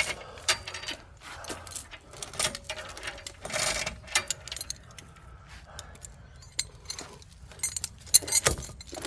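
Irregular metallic clinks and rattles of chain and steel hardware as a come-along is hooked up and worked, with a denser rattle about halfway and several sharp clanks near the end.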